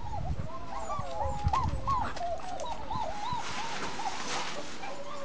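Belgian Malinois puppies whining: many short, arching whines overlapping several a second, thinning out after about three seconds.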